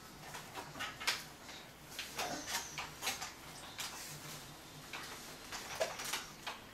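Scattered light clicks and knocks from a toddler climbing on a plastic baby swing and gripping its frame.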